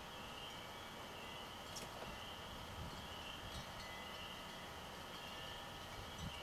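Faint outdoor background: a steady high-pitched chorus of calling creatures that swells and fades slowly, with a couple of soft low thuds.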